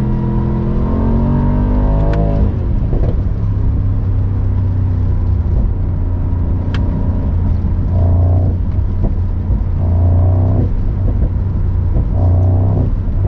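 Mercedes-AMG SL55's 4.0-litre twin-turbo V8 accelerating: its pitch rises for about two seconds and drops sharply at a shift. It then runs at lower revs with three short bursts of throttle, with a couple of sharp exhaust pops.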